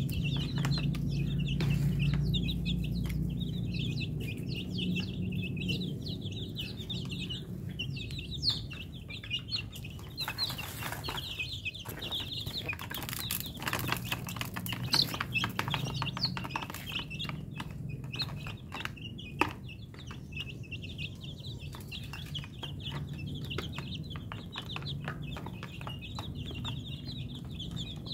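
A flock of young chickens peeping continuously: many short, high cheeps overlapping without pause. A few sharp taps stand out, about a third and two thirds of the way through.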